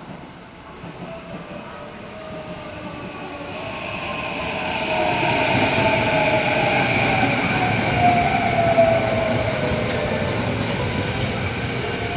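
A Sanyo Electric Railway electric train approaching along the line, growing steadily louder and staying loud through the second half, with a motor whine that slides slowly down in pitch over the rush of the wheels.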